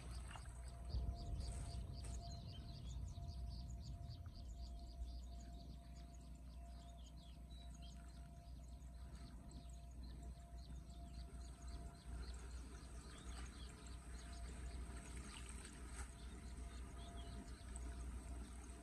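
Small splashes and trickling of shallow floodwater as gloved hands pull debris out of a blocked curbside storm drain, with birds chirping. A low rumble is strongest in the first few seconds.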